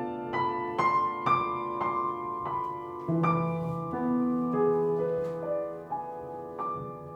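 Piano playing slowly and quietly: single notes and chords struck about every half second, ringing on over held lower notes, with a deeper bass note coming in about three seconds in.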